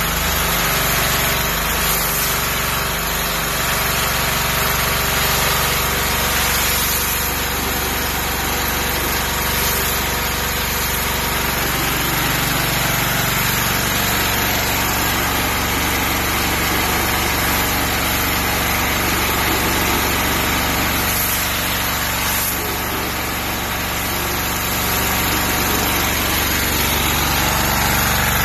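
Small diesel engine of a pressure washer running steadily, with the hiss of the high-pressure water spray.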